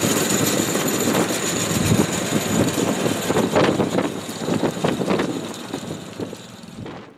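Engine of a small ride-on farm transport cart running as it drives off, with some rattling about halfway through, fading as it pulls away.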